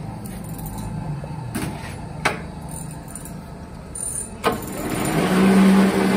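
A metal lathe with an excavator bucket pin in its four-jaw chuck: two sharp knocks, then about five seconds in the lathe starts and runs up to a steady hum.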